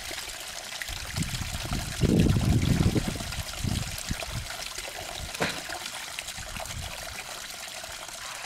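Steady trickle of water from a backyard garden pond. About two seconds in, a low rumble lasts for about a second.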